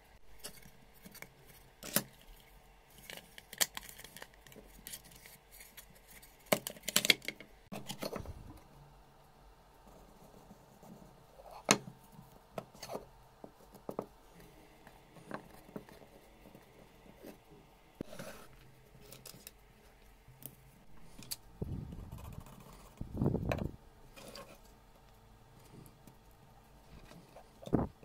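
Scattered clicks, taps and light knocks of small wooden pieces and metal hand tools being handled on a tabletop, with a few duller thuds a little past the middle.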